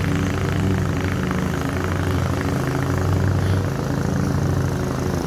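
Lawn mower engine running steadily and loud, with a low, even drone.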